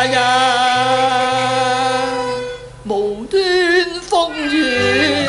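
Cantonese opera duet: a long held, wavering sung note over the accompanying ensemble, breaking off about two and a half seconds in before new melodic phrases begin.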